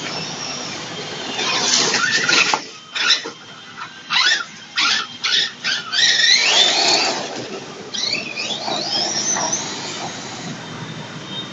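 HoBao SS radio-controlled short-course truck running on grass, its motor whining in a series of short throttle bursts, then twice rising steeply in pitch as it speeds up, about six and eight seconds in.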